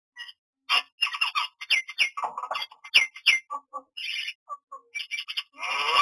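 Common myna calling: a rapid, varied run of short squawks, clicks and falling whistles, broken by brief pauses, with a louder, denser burst near the end.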